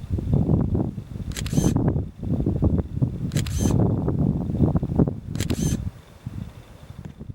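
Wind buffeting the microphone in heavy low gusts that die down about six seconds in. A short high rustle comes about every two seconds.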